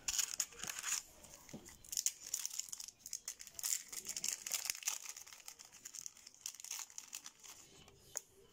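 Foil wrapper of a Yu-Gi-Oh booster pack crinkling and tearing as it is ripped open by hand. The crackle comes in spells, loudest in the first few seconds.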